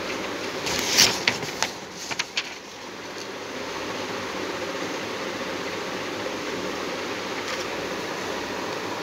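Steady background hiss, with a cluster of rustles and sharp clicks from about one to two and a half seconds in as a sheet of paper is handled.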